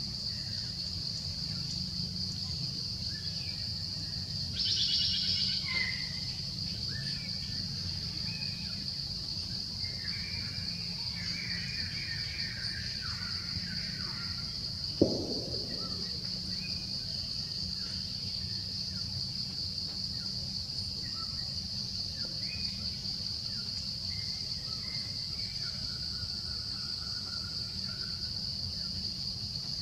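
Steady high-pitched drone of forest insects, with scattered short bird chirps in the first half and a single sharp click about halfway through.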